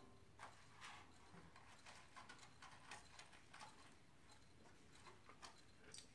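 Faint, quick sniffing from a dog, short sniffs coming a few times a second at an irregular pace.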